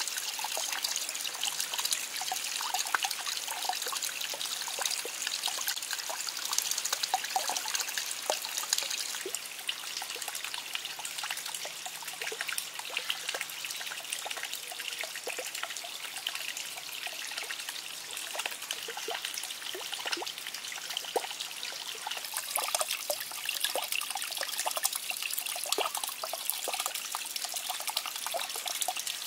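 Water trickling and splashing steadily from a small man-made waterfall into a shallow pond, with many small drips and splashes. The tone shifts slightly about nine seconds in and again a little past twenty seconds.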